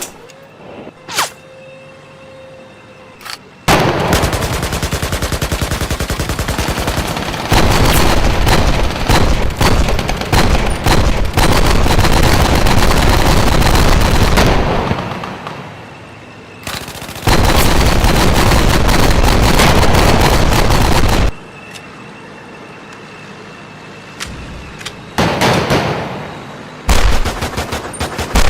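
Automatic gunfire in long sustained bursts. One burst starts about four seconds in and runs about ten seconds, a second lasts about four seconds, and shorter bursts come near the end. Scattered single shots fall between the bursts.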